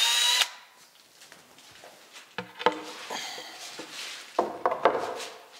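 Wooden kitchen cabinet doors and their metal hinges being handled: a short, loud ringing clank at the start, then scattered light knocks and clicks.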